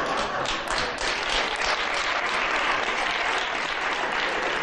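Studio audience applauding, steady clapping throughout.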